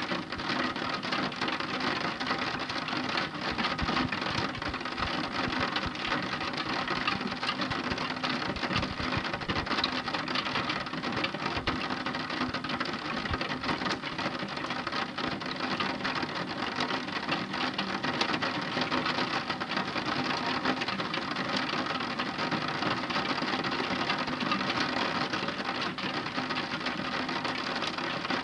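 Steady, heavy rain: a constant dense wash of drops hitting a surface, without let-up.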